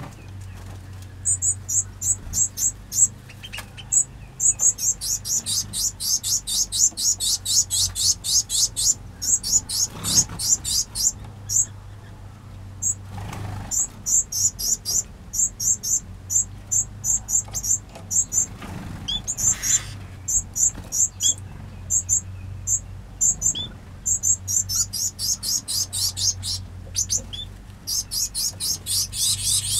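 Small aviary finches chirping: rapid runs of short, high, sharp chirps, several a second, broken by brief pauses.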